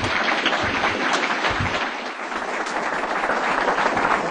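Audience applauding steadily: many hands clapping at once, making a dense, even patter.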